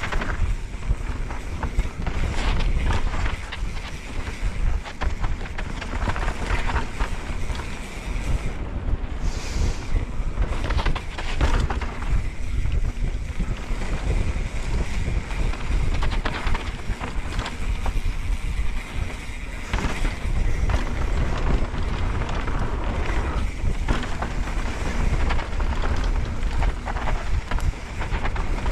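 Wind buffeting a helmet-mounted action camera's microphone during a fast mountain-bike descent on a dirt trail, with constant low rumble from the tyres and frequent irregular clatter and knocks from the Pivot Firebird full-suspension bike over rough ground.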